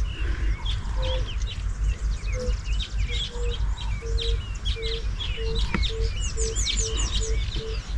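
Many small birds chirping in quick, short falling notes. From about halfway through, a series of short, evenly spaced low notes repeats about twice a second.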